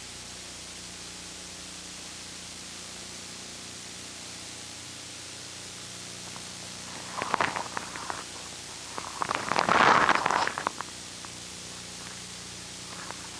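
Steady recording hiss with a faint low hum. Two short bursts of louder, rough noise come about seven and ten seconds in.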